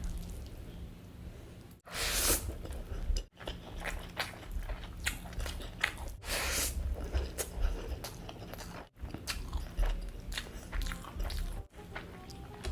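Close-up crunching, biting and chewing of food, in short segments that cut off abruptly every two to three seconds.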